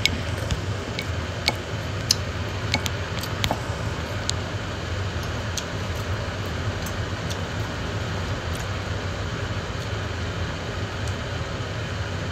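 Eating sounds, someone eating fried fish and rice with her fingers: scattered sharp clicks and smacks, more of them in the first four seconds, over a steady machine hum.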